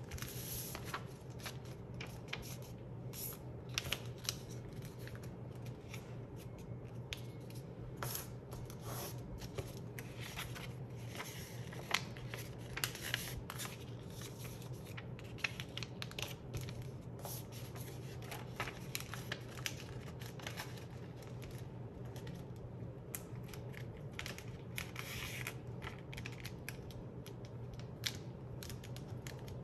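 A sheet of paper being folded by hand into a paper airplane: irregular crisp rustles and scrapes as fingers press and run along the creases against the board, with a faint steady low hum beneath.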